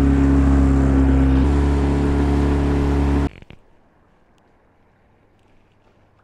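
Mercury tiller outboard motor running steadily at speed, pushing the boat. It cuts off abruptly a little over three seconds in, leaving only faint background sound with a few small ticks.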